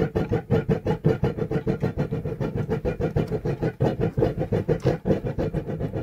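Background music with a fast, steady beat.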